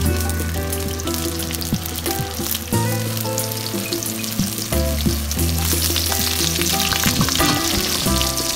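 Meat-stuffed tofu squares pan-frying in oil in a wok, sizzling with a steady crackle that is at its densest a little past the middle. Background music with held bass notes plays over it.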